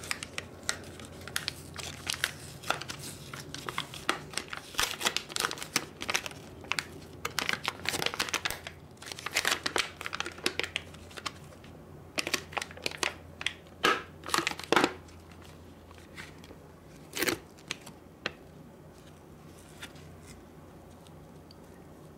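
Clear plastic clamshell packaging of a new CPU being peeled open by hand: irregular crinkling and crackling of thin plastic and its paper backing. The crackling is dense for the first fifteen seconds or so, then thins to a few sharp crackles and quiet handling.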